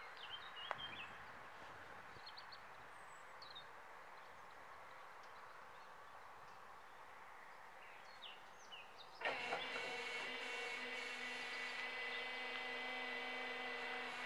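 Level crossing warning signal from a Pintsch Bamag half-barrier crossing, switching on suddenly about nine seconds in. It is a steady warning tone that sounds while the half-barriers lower for an approaching train. Before it, a few scattered bird chirps over faint outdoor background.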